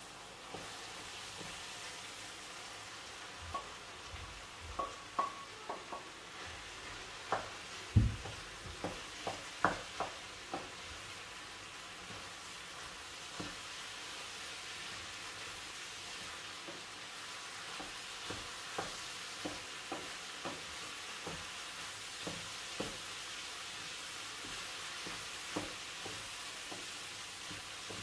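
Chopped mushrooms sizzling in an oiled frying pan with sauce, starting with a steady hiss just after they are tipped in. A wooden spoon knocks and scrapes against the pan as they are stirred. The knocks come thick in the first ten seconds or so, loudest about eight seconds in, then more sparsely.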